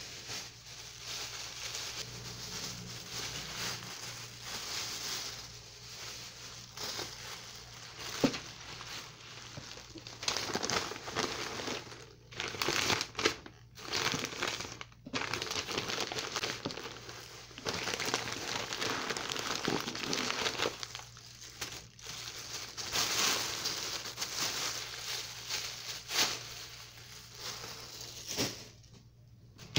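Plastic carrier bags and sheets of newspaper crinkling and rustling as vegetables are unpacked and wrapped. The handling runs almost without a break, with a few short pauses partway through.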